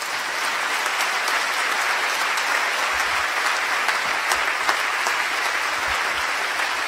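Audience applauding steadily, with a few single claps standing out from the mass.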